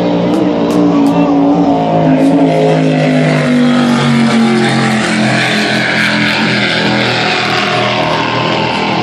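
Offshore racing powerboat's engines running at full speed as it passes, the engine note dropping in pitch as it goes by.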